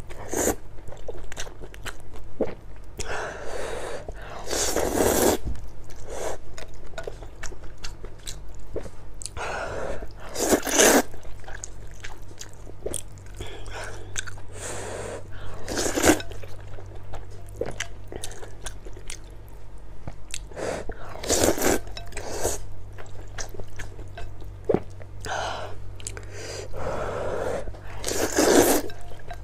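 A person slurping glass noodles in a spicy broth, with about seven long drawn-in slurps and wet chewing between them. A low steady hum runs underneath.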